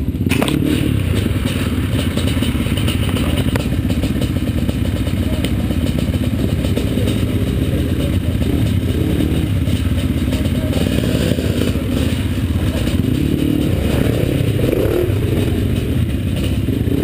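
Trials motorcycle engine idling close to the microphone, a steady low putter. Another trials bike's engine rises and falls behind it at times.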